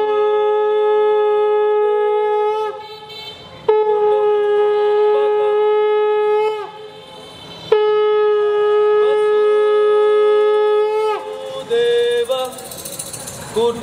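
Conch shell (shankha) blown in three long held notes of about three seconds each, with short breaks between them. Each note dips slightly in pitch as it ends. A few shorter, wavering blasts follow near the end.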